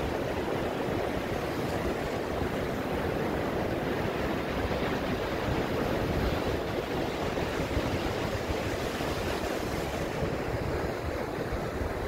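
Ocean surf breaking and washing up a sandy beach: a steady rushing wash of waves that swells a little midway and eases slightly near the end.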